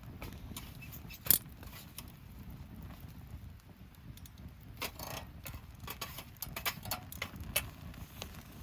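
Small hard objects, likely metal camp cookware and utensils, clinking and clattering as they are handled. There is one sharp click about a second in and a denser run of clinks in the second half.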